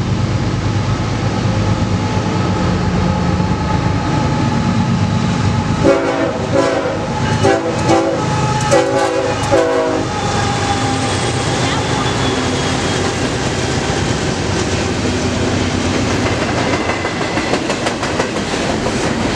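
BNSF diesel freight locomotive approaching with its engine running, then sounding its multi-note air horn in a string of about five blasts around the middle. After the horn, the double-stack container cars roll past in a steady rush of wheel and rail noise.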